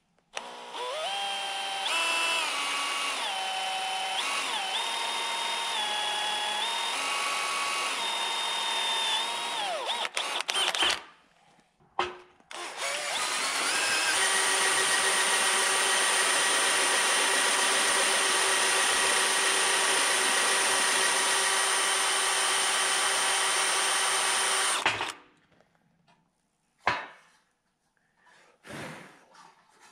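Cordless drill boring holes through a steel plate, in two long runs: the motor's whine shifts up and down in pitch with the trigger during the first, then holds steady through the second before stopping. A few short clicks follow near the end.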